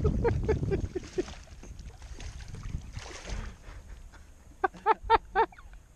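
A hooked fish splashing at the surface as it is reeled toward a small boat. A run of quick squeaky notes comes at the start, and four loud squeaky notes come close together near the end.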